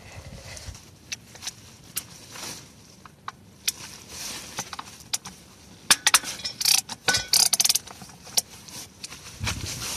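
Ratchet wrench and socket clicking and clinking on the transmission oil pan bolts as they are loosened, with scattered single clicks and a quick run of rapid ratchet clicks about six to eight seconds in.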